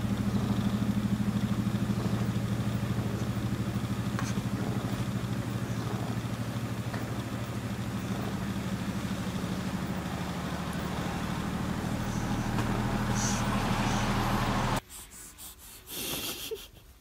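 Calico cat purring close to the microphone: a steady, rapidly pulsing low rumble that cuts off suddenly about two seconds before the end.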